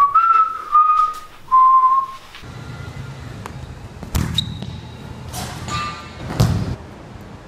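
A person whistling three short notes, each a little lower than the last, then a futsal ball being kicked twice on an indoor court, each kick a sharp thud that echoes in the hall.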